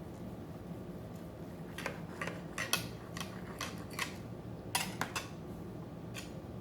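Cutlery clicking and scraping on a dinner plate, about ten short, sharp strokes bunched between about two and five seconds in.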